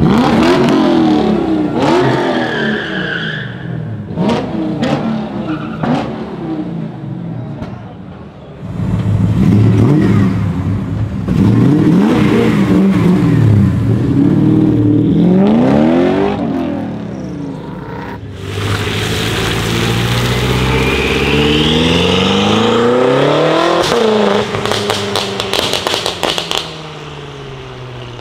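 Hard-revved BMW E30 engine, its pitch climbing and falling over and over as the car pulls away, with sharp pops between the revs. From about two-thirds in, a second run of hard revving with more pops follows.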